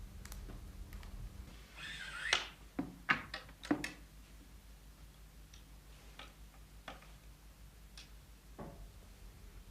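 Light clicks and taps from hands working on the valve grinder's grinding heads while self-adhesive grinding discs are fitted. A brief rising scrape about two seconds in is followed by a quick cluster of sharp taps, then a few faint ticks, over a low steady hum.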